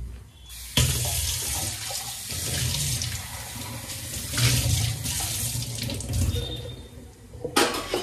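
Water running from a tap into a sink. It starts about a second in and stops shortly before a few sharp clicks or knocks near the end.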